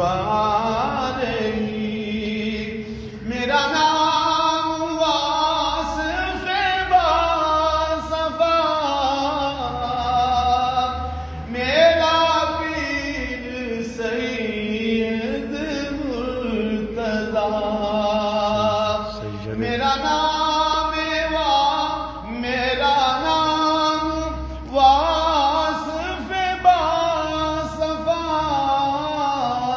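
A man singing a naat unaccompanied in long, drawn-out phrases, with wavering held notes and slow slides in pitch.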